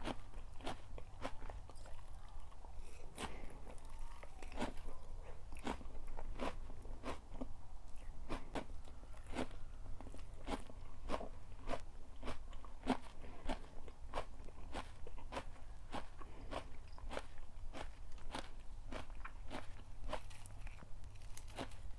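Crunchy food being bitten and chewed close to the microphone: a steady run of crisp crunches, about two a second.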